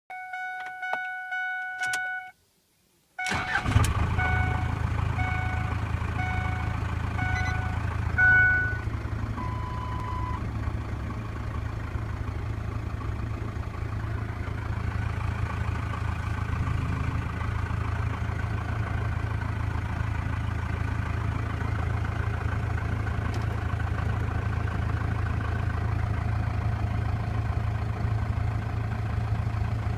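Cummins 4BT four-cylinder turbodiesel in a Ford F-150 starting about three seconds in, then idling steadily, heard from inside the cab. A dashboard warning chime beeps repeatedly over the first several seconds.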